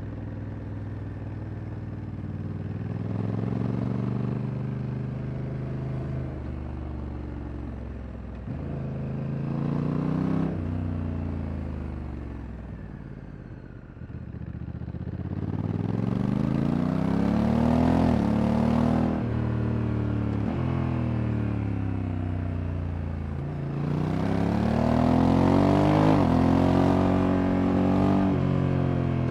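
2024 Honda Africa Twin Adventure Sports DCT's parallel-twin engine under way. Its pitch climbs as it accelerates and drops suddenly at each automatic shift of the dual-clutch gearbox. Around the middle it eases off and the pitch falls, then it accelerates again up through several quick gear changes.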